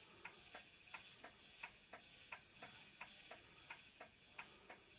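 Brass anniversary clock ticking fast and faint, about three ticks a second in an alternating tick-tock. The clock is running on its own although it has not been wound, and the owner says its rotating ball pendulum has stopped spinning.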